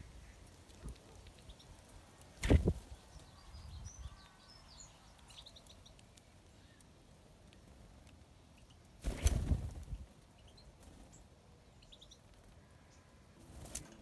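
Two short whooshes of wings flapping as young starlings come and go at a hanging mesh feeder, the first about two and a half seconds in and a longer one about nine seconds in. Faint high chirping of small birds comes between them.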